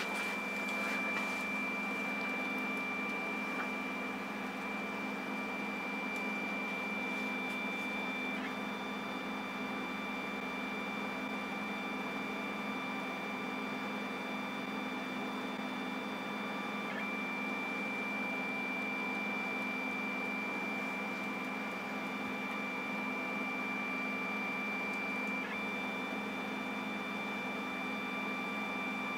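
CNC pen plotter's stepper motors running steadily with a high whine as the pen draws straight lines, the tone breaking briefly three times as the carriage turns each corner.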